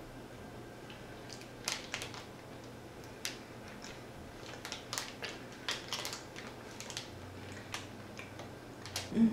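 Chewing soft chocolate-filled banana cake: irregular wet mouth clicks and smacks, a dozen or so sharp ticks spread through, with a short low hum near the end.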